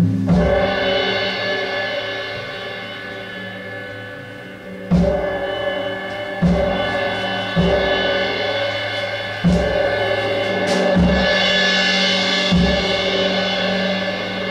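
Live percussion struck at irregular intervals, about seven hits, each leaving a long, shimmering ringing wash of overtones that carries on between the strikes.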